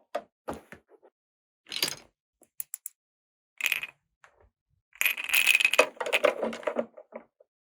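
Small hard plastic toy pieces being handled, clicking and clinking a few times, then rattling together in a longer clatter about five seconds in.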